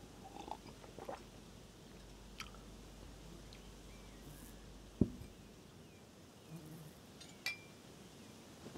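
Faint, sparse small clicks and crackles, with one dull thump about five seconds in and a sharper click a couple of seconds later.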